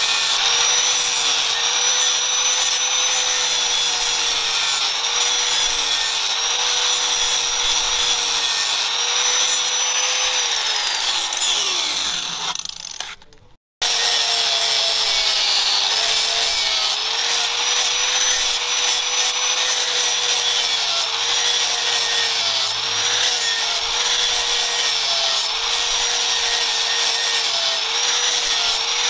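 Angle grinder with an abrasive disc grinding a leaf-spring-steel axe head: a steady motor whine that sags briefly every second or two as the disc is pressed onto the steel. About ten seconds in, the whine winds down and fades as the grinder spins down; after a short break it is running again at full speed.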